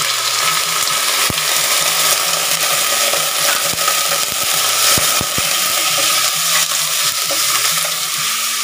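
Raw chicken and liver sizzling in hot oil in a stainless steel pot as a spatula stirs them, with a few sharp knocks of the spatula against the pot about a second in and again around five seconds in.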